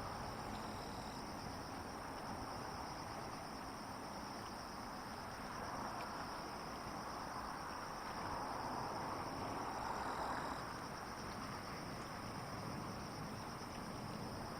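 Insects trilling steadily at two high pitches, over faint background noise that swells a little around the middle.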